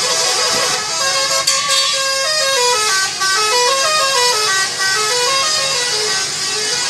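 Bus telolet musical horn playing a quick tune of short notes that step down and back up in repeated waves.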